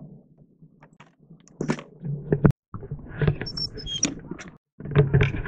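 Handling noises at a scooter: the ignition key turned and the seat unlatched and lifted to open the underseat storage. Scattered clicks and knocks, with a sharp click about halfway through.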